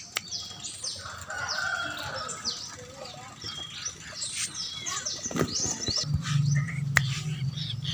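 Young birds of prey giving begging calls while being hand-fed: many short, high, downward-sliding chirps in quick succession. A low hum joins about six seconds in.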